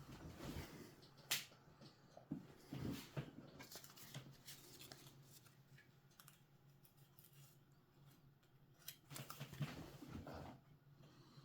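Irregular small clicks, taps and rustling from hands handling and fitting hard plastic parts, with a few sharper clicks about a second in and a cluster near the end.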